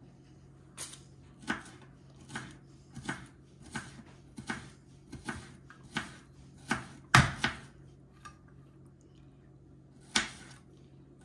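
Browne pasta machine's table clamp being screwed onto the counter: a string of sharp clicks about one every 0.7 seconds, a louder knock about seven seconds in, and one more click near the end.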